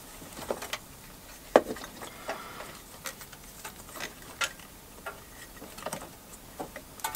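Scattered light clicks and taps of small parts being handled by hand, with one sharper knock about one and a half seconds in.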